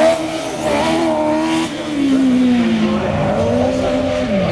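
OMS 200M single-seater racing car's engine running hard at speed, its pitch holding, then falling away about two seconds in, dipping and rising again near the end as the driver works the throttle and gears.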